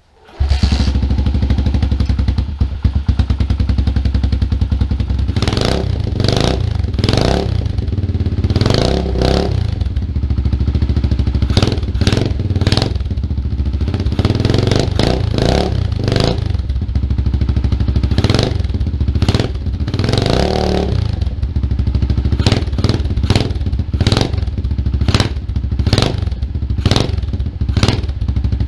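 Stomp Superstomp 120R pit bike's single-cylinder four-stroke engine on its stock exhaust, starting up and running at idle, with many short throttle blips revving it up and back down.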